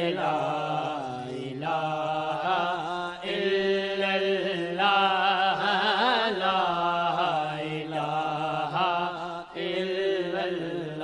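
Male voice singing a hamd in long, melismatic held phrases with a wavering vibrato, over a steady low drone.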